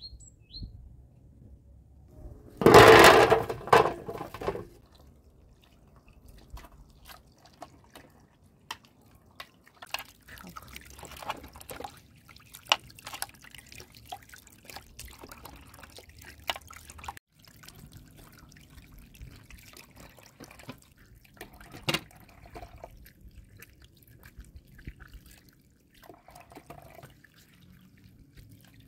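Water from a garden hose splashing and dripping into a metal basin as carrots and other vegetables are rubbed clean by hand, with scattered clicks and knocks of handling. About three seconds in, a loud pitched call lasts about two seconds.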